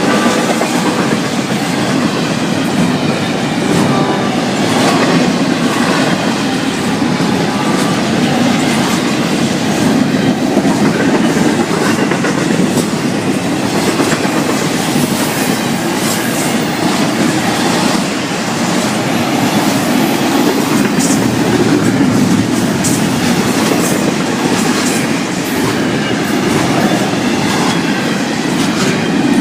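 Florida East Coast Railway freight train rolling past at speed: a steady loud rumble of the cars, with wheels clicking over rail joints.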